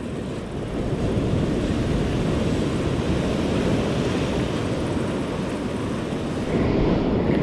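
Steady noise of surf washing up the beach, mixed with low wind rumble on the microphone.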